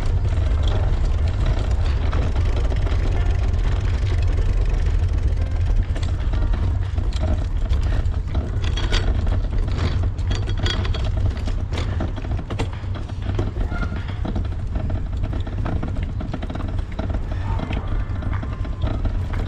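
Steady low rumble of wind and road vibration on the microphone of a camera mounted on a handbike rolling over cobblestones, with scattered rattling clicks from the bike, busiest in the middle.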